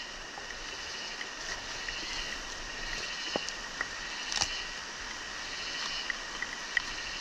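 Steady rain falling on the crops and vegetation, a continuous hiss with a steady high-pitched hum running through it, and a few scattered sharp taps.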